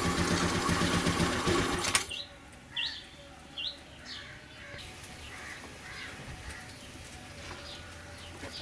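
Honda Dio scooter engine running, then cut off suddenly about two seconds in. Birds chirp afterward in short, rising chirps.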